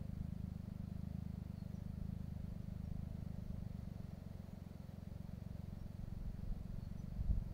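Joyner 800cc buggy's engine running at a distance, a low steady rumble that dips midway and grows louder again near the end.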